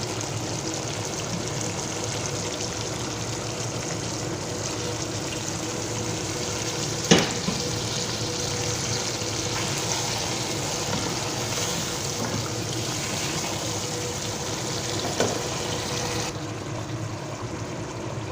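Hot water being poured into a pot of sautéed chicken and spices, with a steady hiss of pouring and sizzling. A sharp knock comes about seven seconds in and a fainter one near fifteen seconds. The hiss thins out shortly before the end.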